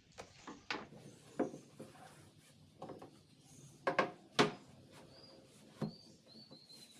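Irregular knocks and clicks, like wooden parts being handled and set down, with the loudest two a little before and after four seconds in. A few faint, short, high chirps come near the end.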